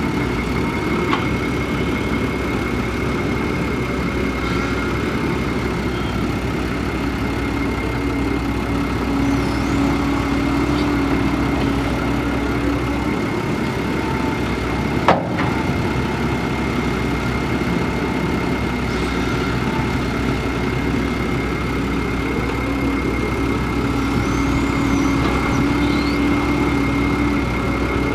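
Kobelco hydraulic excavator's diesel engine running steadily, with a thin high whine held throughout. A single sharp knock comes about halfway through.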